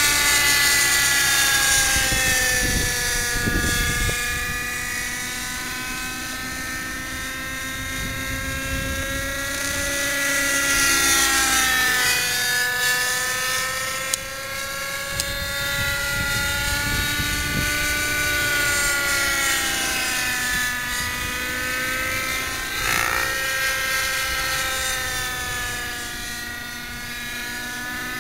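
X-Cell 90 RC helicopter in flight, its two-stroke glow engine and rotors giving a steady high-pitched whine. The pitch sags and climbs back several times as it manoeuvres.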